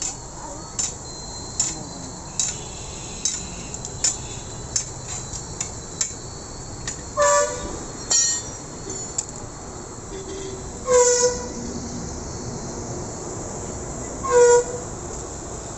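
Three short horn toots, each about half a second and a few seconds apart, over regular sharp ticks that come a little more than once a second.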